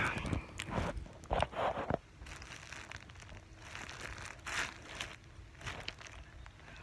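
Irregular rustling and crinkling of a towel and clothing rubbing against the phone close to its microphone, louder in the first two seconds and then fainter.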